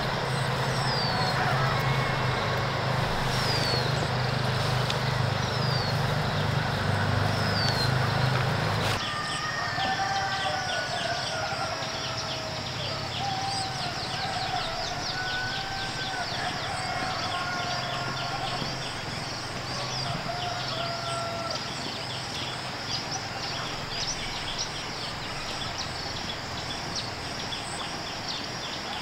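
Countryside ambience of birds calling: a short falling chirp repeats every second or so, then many quick high chirps and longer wavering calls. A steady low hum sits under the first nine seconds and stops abruptly.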